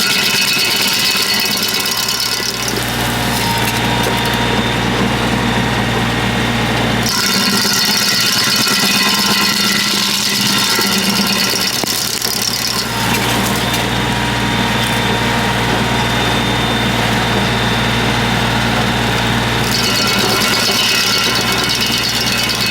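Tractor-driven stump grinder working on stumps. The tractor engine runs steadily under load while the cutter wheel bites the wood. Every five or six seconds the sound swaps between a bright, high grinding and a deeper drone.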